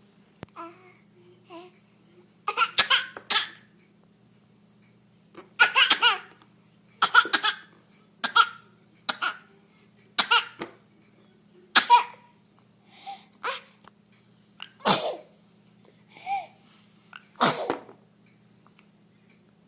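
A young child coughing: a bad cough, coming in about a dozen short, harsh bouts, some in quick pairs of two or three.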